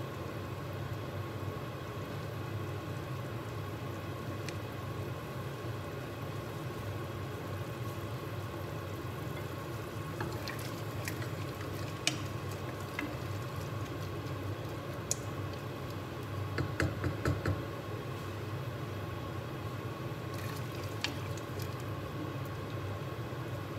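A wooden spoon stirs potato and asparagus in a stainless steel pot, with light knocks against the pan and a quick run of about half a dozen taps a little past the middle. Under it is a steady hiss from the pot cooking on the gas hob.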